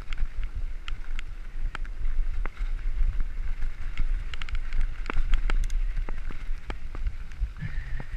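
Mountain bike riding fast over a dirt and gravel forest track: a steady low rumble of wind on the microphone and tyres on the ground, with scattered sharp clicks and rattles from the bike over the bumps.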